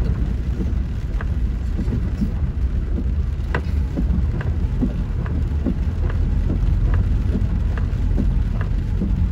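Inside a car driving through floodwater in rain: a steady low rumble of engine, tyres and water, with scattered sharp ticks of raindrops hitting the car's body and windscreen.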